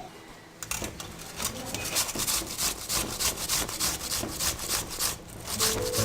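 Rhythmic scraping strokes, about two to three a second, starting about half a second in.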